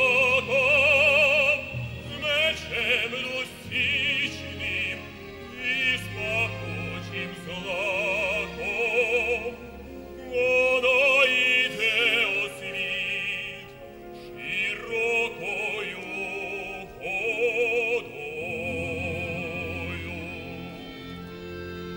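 A male opera singer sings long, held notes with wide vibrato over an orchestra. The voice stops about 18 seconds in, and the orchestra's strings carry on alone.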